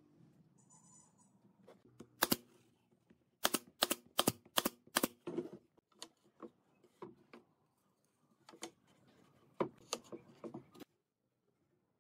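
Pine slats and boards knocking and clacking against a wooden frame and workbench as they are set in place. There is one sharp knock, then a quick run of five, then scattered lighter knocks.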